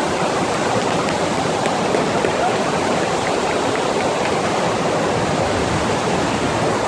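Steady rush of water from a FlowRider surf machine's pumped sheet wave pouring continuously over the riding surface.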